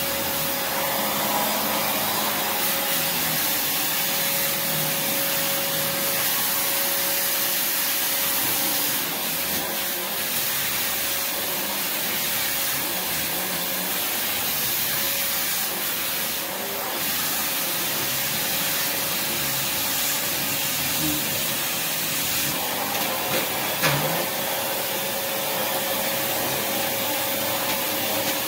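Prolux X8 Elite backpack vacuum running steadily while its brush roll nozzle works over a sealed rubber-backed mat, the nozzle sticking to the mat even with the suction relief valve open. There is one short knock about three-quarters of the way through.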